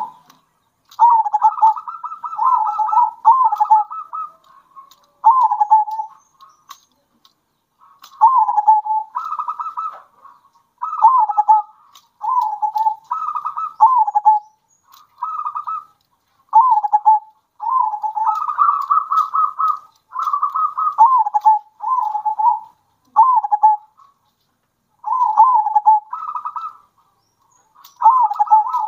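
Zebra doves (perkutut) cooing in repeated short rolling phrases about a second long, in bouts with short gaps between them. Some phrases sit higher and some lower, as several birds call in turn.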